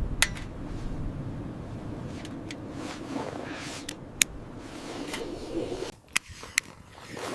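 Steady wind noise with a few sharp, scattered clicks, like small gear being handled.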